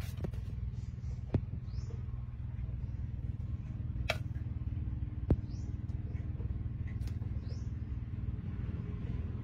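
Outdoor background: a steady low rumble, with faint short high chirps every second or two and a few sharp clicks.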